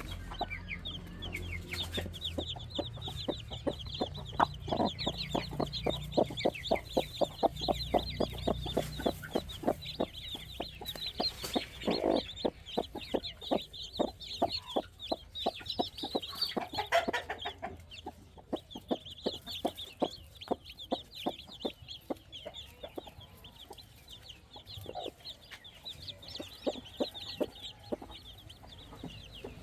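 Chickens clucking in a rapid run of short notes, several a second, with a steady chorus of high chick peeps over them.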